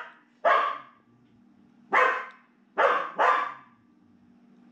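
Dog barking: four barks spread over a few seconds, the last two in quick succession.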